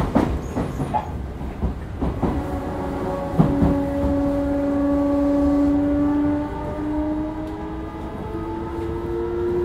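Odakyu 1000-series electric train running, wheels rumbling on the rails with a few knocks from rail joints. About three seconds in, the traction motors and inverter start a steady whine, and its pitch steps up several times as the train accelerates.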